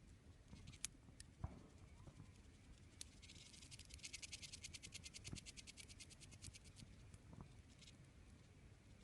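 Campfire of split firewood crackling faintly, with a couple of sharp pops in the first two seconds. From about three seconds in, a rapid, even ticking of roughly ten clicks a second runs for about four seconds.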